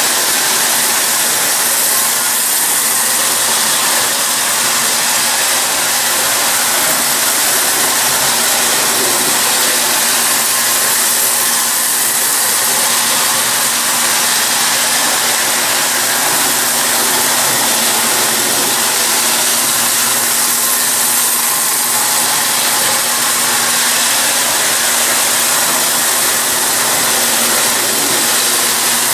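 Marx 333 die-cast toy steam locomotive and its passenger cars running steadily around three-rail tinplate track: an even motor whir and the rolling noise of metal wheels on the rails, with a faint steady hum underneath.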